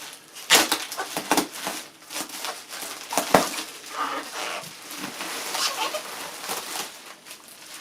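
Packing material being unwrapped and handled: crinkling and rustling with scattered knocks, the sharpest about half a second and about three and a half seconds in.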